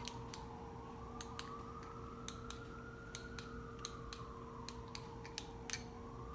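A faint distant siren wailing, its pitch slowly falling and rising again over about five seconds, with scattered light clicks and a steady hum underneath.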